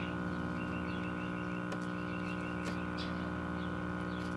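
Steady electrical hum of several pitches from a vintage tube AM radio-phonograph that is powered up, the kind of hum that open filter capacitors cause. A few faint clicks and small high chirps sit over it.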